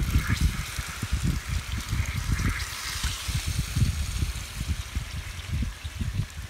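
Water pouring in a thin stream from a plastic bottle into a steel bowl of dry spice powder and flour, trickling and splashing. An uneven low rumble runs underneath.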